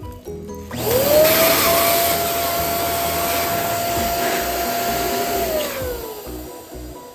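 Electric balloon pump switched on, its motor spinning up to a steady whine with a rush of blown air while a balloon is inflated, then switched off and winding down after about five seconds.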